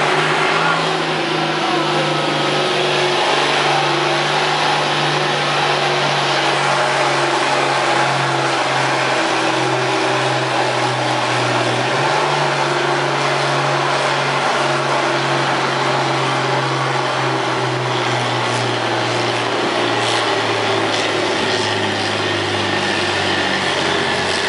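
A pulling tractor's diesel engine running hard under full load as it drags a weight-transfer sled down the track. Its note sinks gradually lower as the pull goes on and the sled loads it down.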